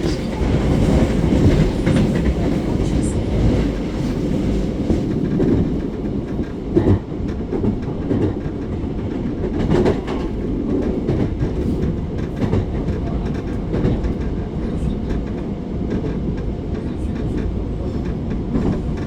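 Commuter electric train running at speed, heard from inside the car: a steady low rumble of wheels on rails, with a few sharper clacks, the loudest about seven seconds in.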